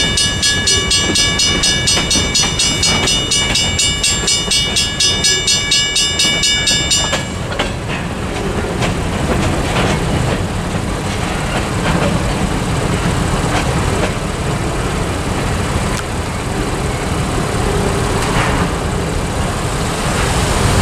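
Western Railroad Supply mechanical crossing bell ringing at about three strokes a second over the rumble and clatter of passing freight cars. The bell cuts off suddenly about seven seconds in as the crossing deactivates once the train has cleared. A low rumble carries on after it.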